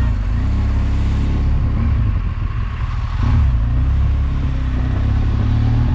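Motorcycle engine running at low speed in a steady low note, with road noise, briefly a little louder about three seconds in.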